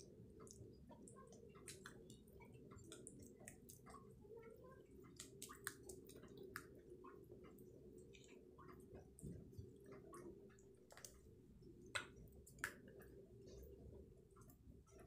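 Faint wet squelching and scattered light clicks of thick rice-flour batter being stirred with a plastic spoon in a glass bowl, with a couple of sharper clicks near the end, over a low steady hum.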